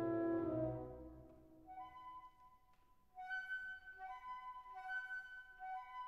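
Calm instrumental background music: a held low chord fades away in the first second or so, then a high, clear melody moves back and forth between two notes.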